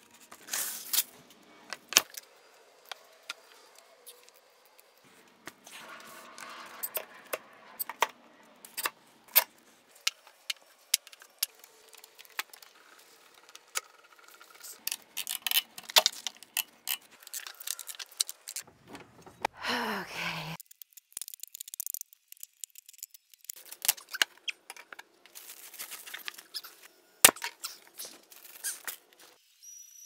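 Metal bar clamps and F-clamps clattering and clicking as they are set and tightened down on wooden cauls over a veneer glue-up, with a brief falling squeak about twenty seconds in.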